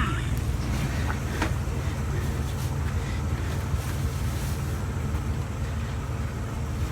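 Steady low rumble of an idling vehicle engine, with a few light knocks about a second in.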